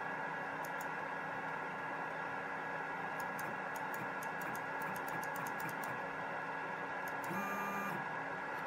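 Steady electrical hiss and hum with scattered light clicks, as the motor is jogged from the computer. About seven seconds in, the extruder's stepper motor gives a brief half-second whine as it steps the brass drive gear round.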